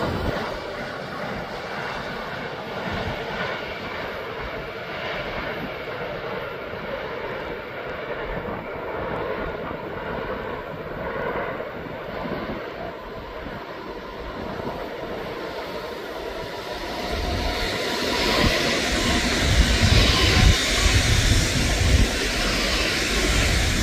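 Two coupled ICE 3 high-speed electric trainsets approaching and passing at speed: a rushing wheel-and-air noise that swells from about two-thirds of the way in and stays loud to the end. Before it, a quieter steady sound of the departing yellow track-maintenance machine.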